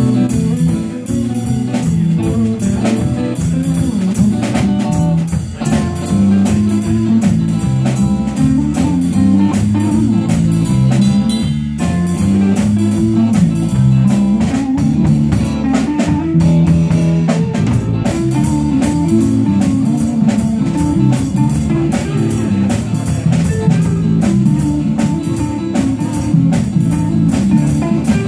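Live band playing: electric guitar played over a drum kit, without a break.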